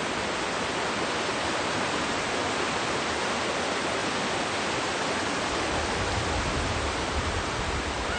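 Steady rush of fast-flowing water from a creek or waterfall, an even hiss with no breaks. A low rumble joins in about six seconds in.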